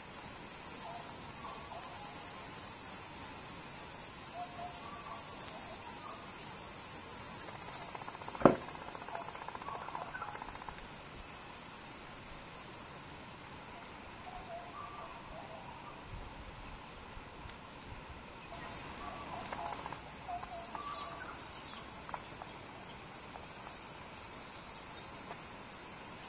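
Insects trilling in a steady high-pitched chorus, which drops slightly in pitch and gets quieter after about nine seconds, then takes on pulsing calls about once a second near the end. A single sharp click about eight seconds in.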